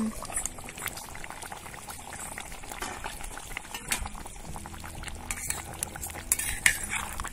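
Spicy chicken curry bubbling at a full boil in an open metal pot, a steady crackle of popping bubbles, with a ladle stirring through it and a few sharper clinks in the later seconds.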